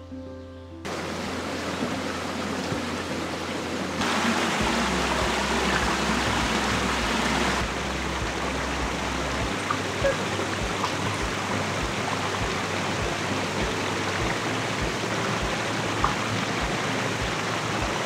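Small woodland brook rushing over a low cascade: a steady rushing of water that comes in about a second in and grows louder about four seconds in.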